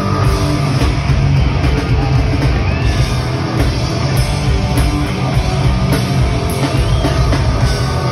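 A heavy rock band playing loud and live: distorted electric guitars, bass and a drum kit, heard from within the crowd.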